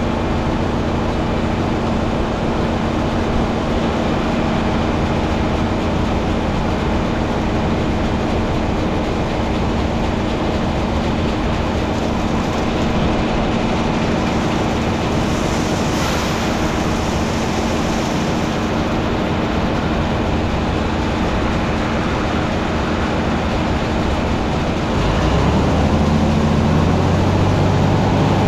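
Steady noise of heavy farm machinery running, with an even hum throughout. About 25 s in it changes to a louder, deeper engine sound.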